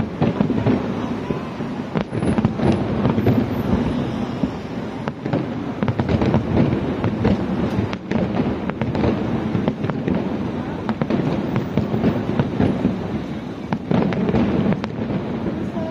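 Aerial fireworks display: a continuous barrage of overlapping bursts and crackles, with a steady low rumble of booms under many sharp cracks.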